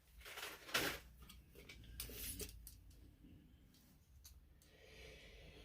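Small metal tension springs being handled: a few faint scrapes and rustles in the first half.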